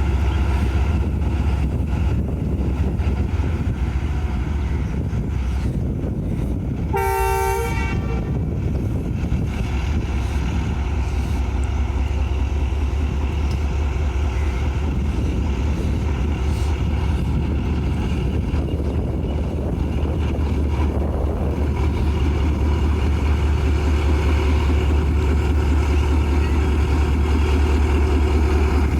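ZCU-30 diesel locomotive's engine running with a steady heavy low rumble, and one short blast of its horn about seven seconds in.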